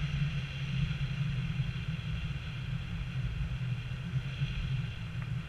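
Wind rushing over an action camera's microphone in paraglider flight: a steady low rumble with a hiss above it.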